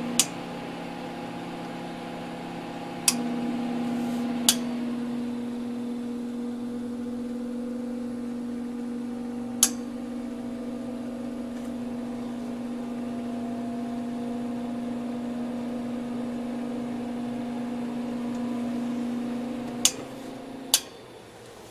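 Small all-metal solder fume extractor fans running with a steady hum, punctuated by sharp switch clicks. The hum grows louder after a click about three seconds in, and after two clicks near the end it stops and fades away.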